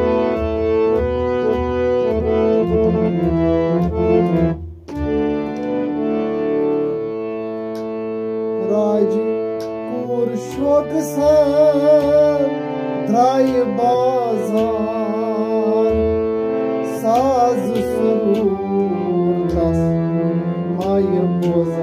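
Harmonium playing a melody in held reedy chords, with a clay pot drum struck by hand keeping the rhythm. The music breaks off briefly about five seconds in, and in the second half a voice sings wavering, ornamented phrases over the harmonium.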